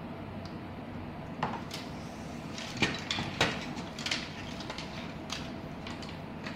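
Air-conditioner control circuit board and its bundled wires being picked up and turned over on a wooden tabletop. A run of knocks and rattles, the loudest about three seconds in, sounds over a steady background noise.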